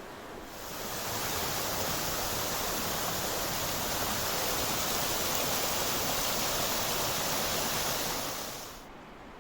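Steady rush of running water, a loud even hiss that fades in about half a second in and fades out shortly before the end.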